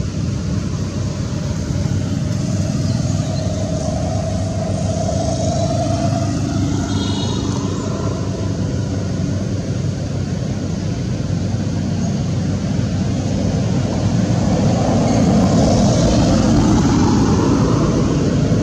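Steady rumble of road traffic, with a brief high chirp about seven seconds in and the rumble growing a little louder near the end.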